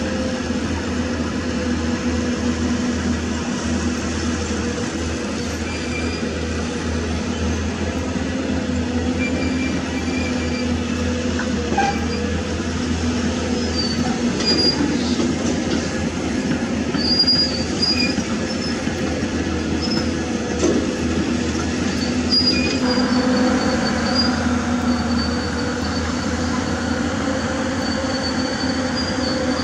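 Hydraulic excavator's diesel engine running steadily under digging load, with a low hum and whine throughout. Short high squeaks come and go from about halfway on, and the sound grows brighter near the end.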